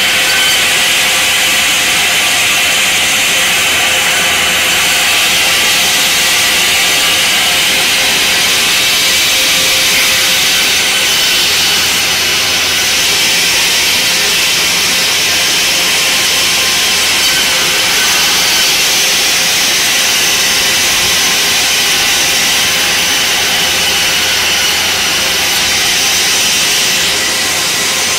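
Sawmill saw running steadily as timber is fed through it: a continuous loud rasping noise with a steady whine over it.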